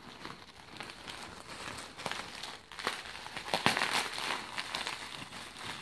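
Plastic bubble wrap crinkling and crackling as it is handled and pulled off a wrapped item, in an irregular run that is loudest a little past the middle.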